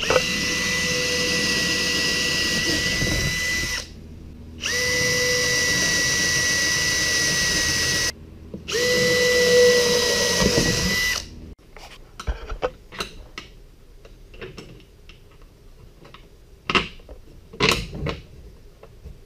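Cordless drill with a 1/4-inch bit boring bolt holes through a thin wooden table top, in three runs of a few seconds each with a steady motor whine and short pauses between them. After that, light clicks and knocks as the aluminum brackets are handled and set in place.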